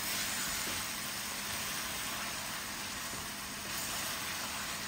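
Chicken curry sizzling in an aluminium pot on a gas hob as it is stirred with a wooden spoon: a steady hiss.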